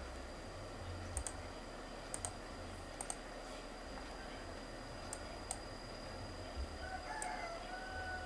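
Computer mouse clicking, single clicks and quick pairs about a second apart, over a steady electrical hum.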